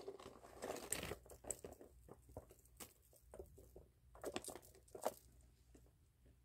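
Faint handling of a Chanel quilted leather phone holder: irregular rustles and small clicks, with its metal chain strap clinking as it is pulled out and lifted around four to five seconds in.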